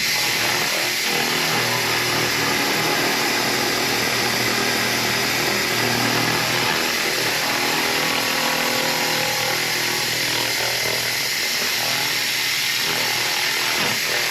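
Handheld laser cleaner in cleaning mode burning rust off the steel of a 1969 VW Bus body: a loud, steady hiss-like noise that starts suddenly and holds without a break.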